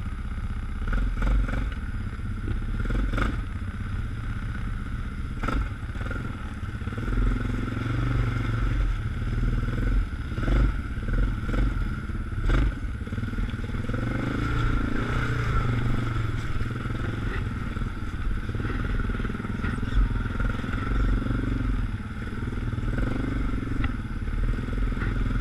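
ATV engine running steadily as the quad rides along a rough, snowy and muddy trail, with occasional sharp knocks and clatters as it goes over bumps.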